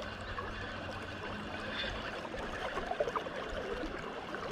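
A shallow brook running steadily over stones, with a constant babbling and trickling.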